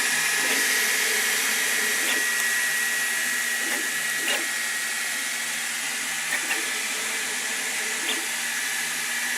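Sovol SV08 3D printer running mid-print: a steady whoosh of cooling fans with a thin high whine that fades after a few seconds, and a few faint ticks.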